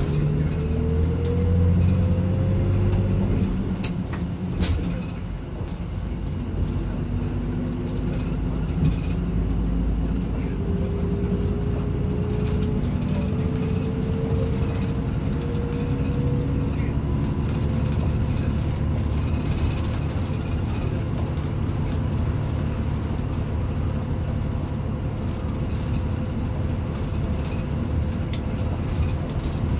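Hino PDG-KR234J2 diesel city bus under way. Its engine note rises as it pulls away and picks up speed through the gears, then settles into a steady run. There are two sharp clicks about four seconds in.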